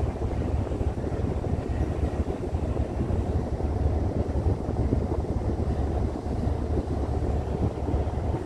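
Wind buffeting the microphone on the open upper deck of a ship under way: a steady low rumble with rough, uneven gusts.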